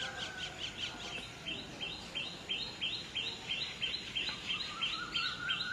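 A bird chirping rapidly: short, high notes repeated evenly at about four a second. A fainter, lower whistle runs underneath in the second half.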